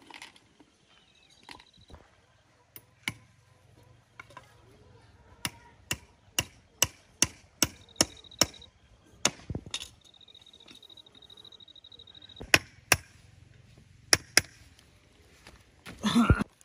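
A tool striking wood in an uneven series of sharp blows, with a quick run of about eight blows in three seconds near the middle. The work is cutting or shaping wood or bamboo for a cage. A short, louder sound with a pitch comes just before the end.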